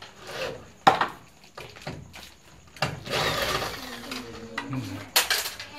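Handheld electric drill working on a generator's sheet-metal control panel. There is a sharp knock about a second in, the drill runs for about two seconds in the middle, and another sharp knock comes near the end.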